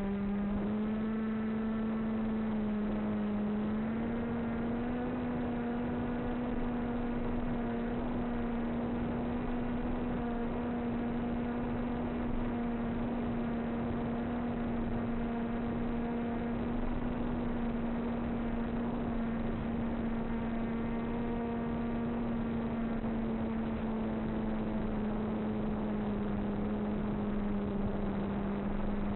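Small motor, likely driving a propeller, running steadily at one even pitch over wind noise. The pitch steps up slightly about four seconds in and then drifts a little.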